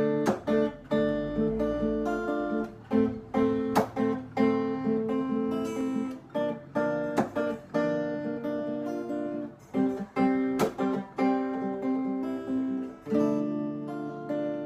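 Yamaha acoustic guitar fingerpicked in a melodic pattern of plucked notes, with a few sharp strummed chords, about 4 and 11 seconds in.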